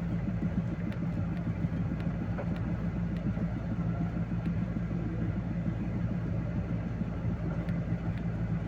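Vehicle engine running at a steady speed, a constant low hum with no change in pitch.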